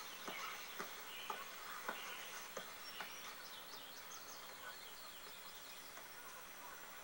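Faint outdoor ambience from a film soundtrack heard through a TV speaker: birds chirping, with soft knocks about every half second over the first few seconds that then stop.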